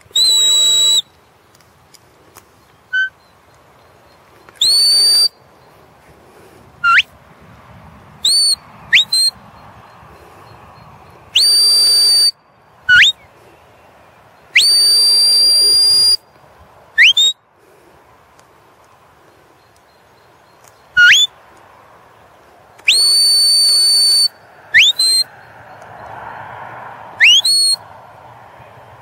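Shepherd's whistle commands to a working sheepdog: a series of loud, pure whistled notes, some held steady for a second or so, others short and sweeping sharply upward.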